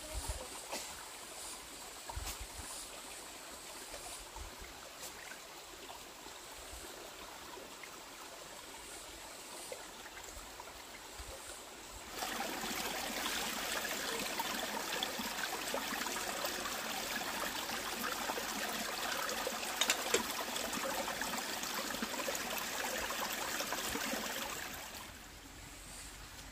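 Shallow stream trickling over stones, much louder and closer from about halfway through until shortly before the end, where a plastic bag is dipped into the water.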